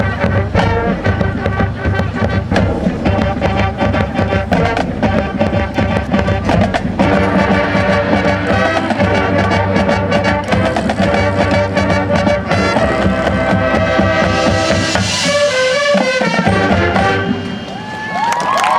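Marching band playing a Latin-style show piece: brass section over a drum line. The music falls away near the end.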